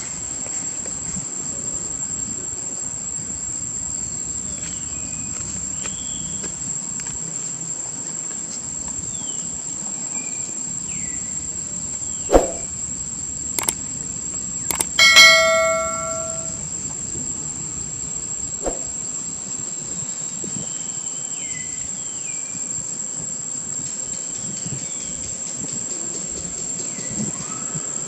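Steady high-pitched insect drone with scattered short chirping calls. About halfway through come a few sharp clicks and a ringing bell chime, the sound effect of an on-screen subscribe button.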